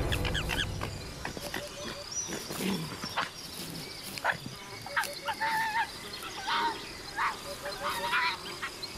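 Red fox giving a series of short, high whining cries, several in quick succession in the second half, over faint chirping insects. Music fades out in the first second.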